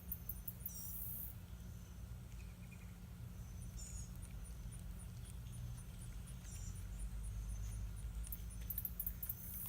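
An insect chirping steadily, very high-pitched, about three chirps a second, starting a few seconds in, over a low outdoor rumble with a couple of brief higher chirps.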